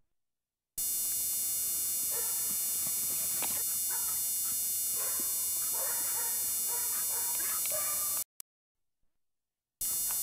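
Dobermans barking faintly over the steady electrical hum and whine of an old videotape recording. The audio drops to dead silence for the first second and again for about a second and a half near the end.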